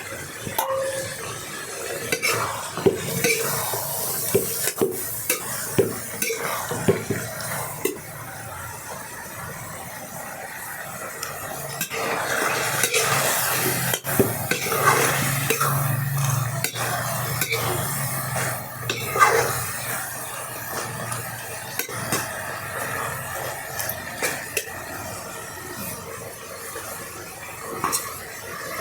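A metal spoon stirring and scraping in a cooking pot, with repeated clinks against the pot, and a stretch of sizzling from frying food in the middle.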